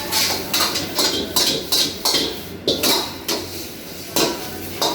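Metal cooking utensil clanking and scraping against a pan while stir-frying noodles, about a dozen quick, irregular strikes with a short metallic ring.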